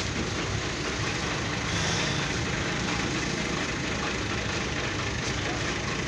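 Tractor diesel engine idling steadily.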